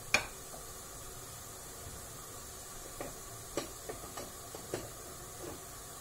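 Steady hiss of a lit gas burner under a steel pot of grape juice heating toward the boil. A sharp click comes just after the start, and a handful of softer ticks and pops follow in the second half.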